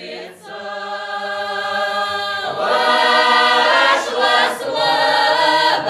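Mixed Russian folk choir of men and women singing in long, held chords, softer at first and swelling louder about two and a half seconds in.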